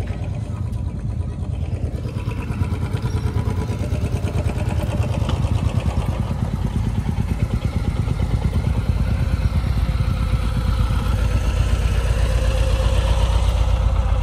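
Several motorcycle engines idling and running at low speed together, a steady low rumble that grows a little louder toward the end.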